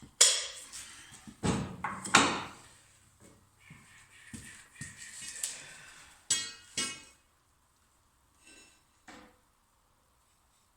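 Metal clanking and knocking: several sharp strikes in the first few seconds, scattered clatter, then two ringing metallic clangs a little past halfway and two faint rings near the end.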